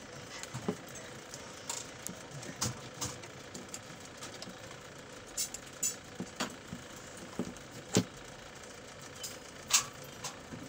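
Scattered short plastic clicks and knocks from a hand-held plastic photocell and its test wires being handled on a table. A steady background hum runs underneath.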